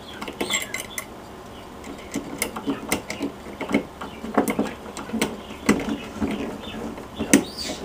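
Hand screwdriver turning a switch's mounting screw into a metal electrical box: irregular metallic clicks and short scrapes of the blade in the screw slot and the threads biting, with a sharper click about seven seconds in.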